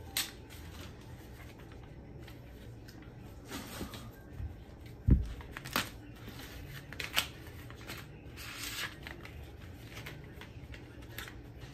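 Rustling and handling of a cardboard box and a plastic foot pad, with scattered clicks and one low thump about five seconds in.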